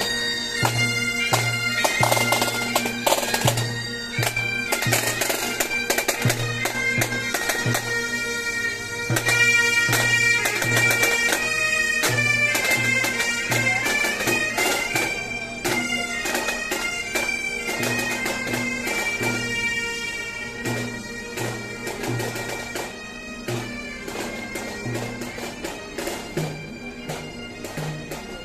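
Bagpipes playing a melody over a steady drone, with a drum beating about twice a second; the music gradually gets quieter.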